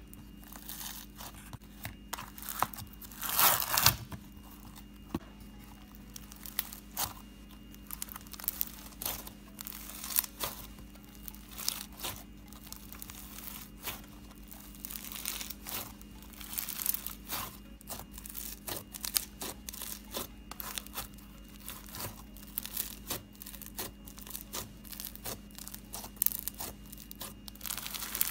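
Floam, slime packed with tiny polystyrene foam beads, being poked, squeezed and kneaded by hand: a continuous run of small crackles and pops as the beads squash and shift, with one louder crunchy burst about three to four seconds in.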